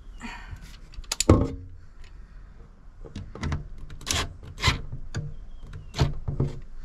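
Metal clicks, knocks and scraping as a steel drawer slide and its screws are handled and fitted into a fridge slide frame, with a loud knock about a second in and sharp clicks every half second or so after that.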